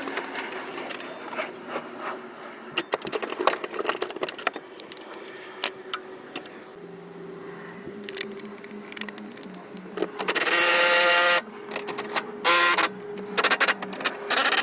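Clicks and rattles of a socket and metal tools being handled, then a power tool spinning a socket on a bolt: one run of just over a second, then several short bursts near the end.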